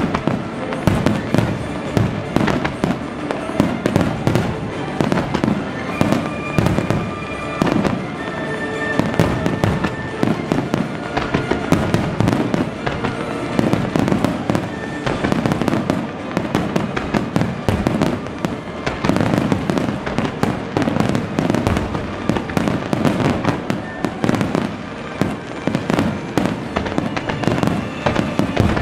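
Fireworks finale: aerial shells and ground effects going off in a continuous dense barrage, many sharp reports a second with no let-up.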